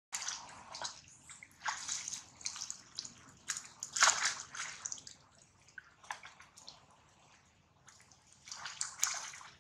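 Water splashing as young macaques wrestle and thrash in a shallow stream, coming in irregular bursts. The loudest comes about four seconds in; after a quieter stretch, another burst follows near the end.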